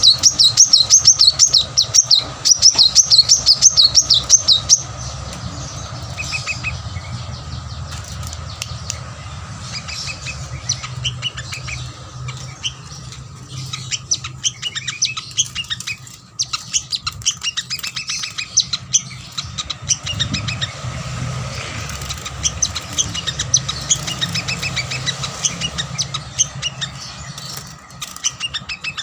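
A sunbird (kolibri manggar) singing: a loud, fast, high trill for about the first five seconds, then softer, scattered high chirps and twitters, over a faint steady hum.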